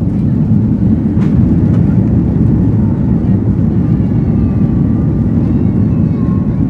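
Cabin noise of an Airbus A330-200 at takeoff thrust: a loud, steady, deep engine rumble with faint whining tones above it.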